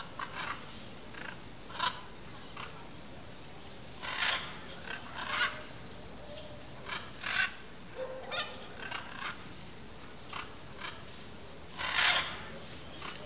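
Blue-and-yellow macaws giving short, harsh, raspy calls at irregular intervals, some lasting about half a second, with the loudest near the end.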